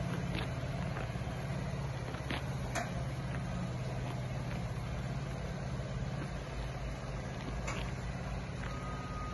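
Heavy vehicle's engine running steadily at low revs as the tram is moved slowly out of the yard, with a few faint clicks and a short steady beep near the end.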